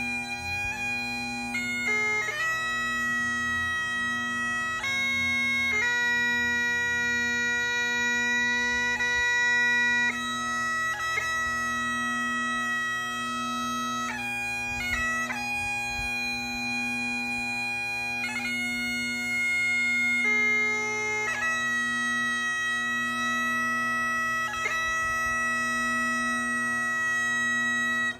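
Great Highland bagpipe played solo: a slow melody of held notes on the chanter over the steady drone, each change of note broken by quick grace-note ornaments.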